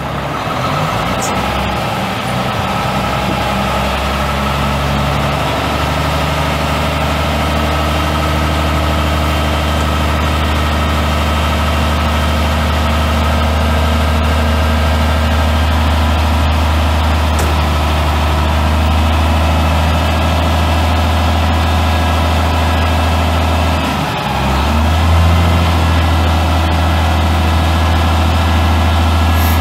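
Cummins ISM 10.8-litre inline-six turbo diesel running at a steady idle, a deep even hum. About 24 seconds in it dips briefly, then settles back a little louder.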